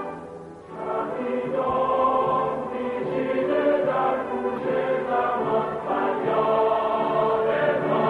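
Background music with a choir singing sustained chords, dipping briefly about half a second in before swelling back.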